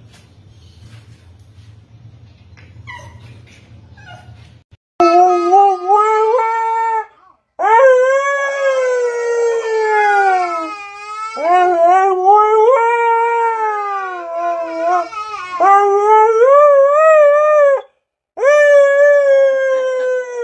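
Siberian husky howling: a run of long howls that rise and fall in pitch, with brief breaks between them, starting about five seconds in after a faint low hum.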